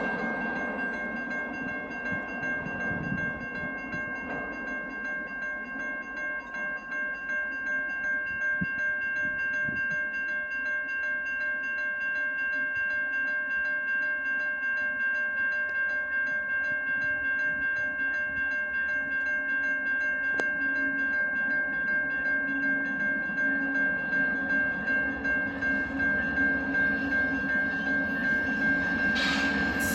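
A train on the tracks, with a steady high-pitched tone held throughout over a running rumble, and a quick regular pulsing that builds in the second half as the train comes on louder near the end.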